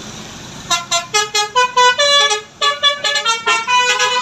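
Bus telolet horn of the Basuri type, a musical air horn, playing a quick melody. From under a second in it sounds a fast run of short notes of changing pitch, about four to five a second.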